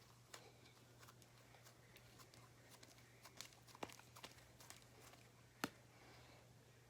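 Slime being kneaded and stretched by hand, very faintly: scattered small sticky clicks and pops, with one sharper click about five and a half seconds in.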